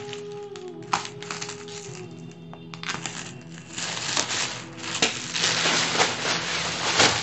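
Clear plastic packaging wrap crinkling and rustling as it is slit with a box cutter and pulled off a new rucksack, with a few sharp clicks and growing louder about halfway through. Soft background music with held notes runs underneath.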